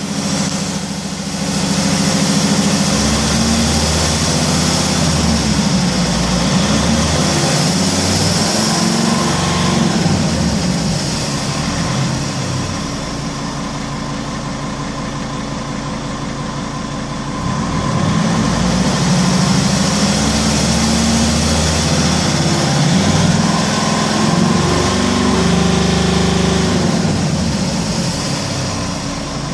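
Mercedes C270 CDI's five-cylinder diesel running warm while stationary, revved up and let back down twice with a steady idle in between. The engine is in a fault-limited state that caps it at about 3000 rpm.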